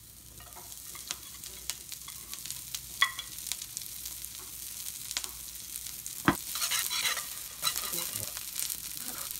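Chopped leek sizzling in sesame oil in a nonstick frying pan, the sizzle growing louder as the oil heats, while a silicone spatula stirs it with small clicks and scrapes. There is a sharp knock a little past the middle.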